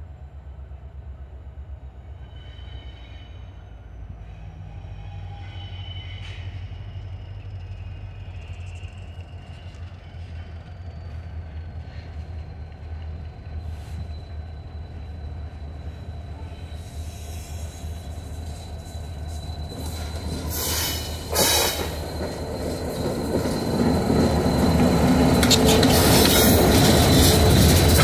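New York, Susquehanna & Western diesel locomotives approaching and passing close by, their engine rumble growing louder over the last few seconds. A thin high wheel squeal slides down in pitch and then holds steady. Two short, sharp, loud noises come about three quarters of the way through.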